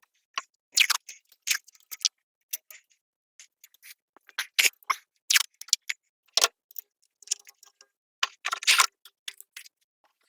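Irregular short rasps and clicks, about a dozen in ten seconds with gaps between, from hand work taping screws in place on a car's panel.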